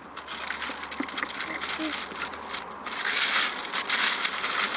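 Crackling, crinkling rustle of parcel packaging being handled and unwrapped, growing louder about three seconds in.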